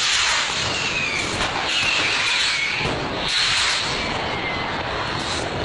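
Fireworks fizzing and hissing in a street: a dense, loud hiss that swells several times, with short high whistles about one and a half to two and a half seconds in.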